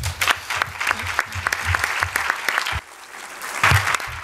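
Audience applauding, a dense patter of many hands clapping that dies down almost three seconds in and swells again about a second later.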